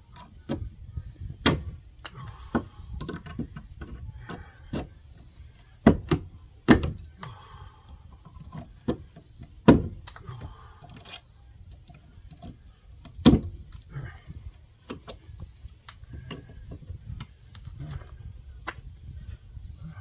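Irregular knocks, cracks and scraping of rotted wall framing being picked and pried apart, the sharpest knocks about six, seven, ten and thirteen seconds in.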